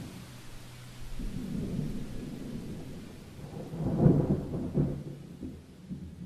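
Rolling thunder over a faint steady hiss of rain. The rumble swells to its loudest about four seconds in, then fades.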